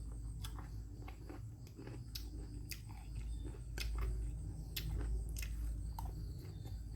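A person chewing and biting food, with a dozen or so sharp, crisp clicks scattered irregularly through it over a steady low hum.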